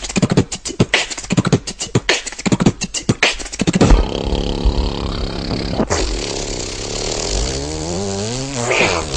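Vocal beatboxing: a fast run of mouth-made drum hits, then, about four seconds in, a sustained vocal bass-and-synth line that wobbles in pitch and glides upward near the end.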